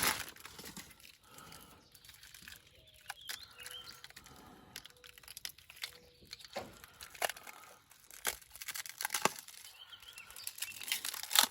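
Plastic packaging crinkling and tearing in irregular handfuls as a new replacement door handle is unwrapped, with a few sharp clicks and snaps among the rustling.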